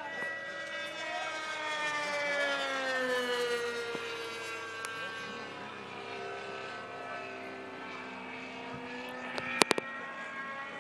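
Radio-controlled model airplane's engine running at speed overhead. Its pitch falls as the plane passes, then rises again near the end, with a few sharp clicks shortly before the end.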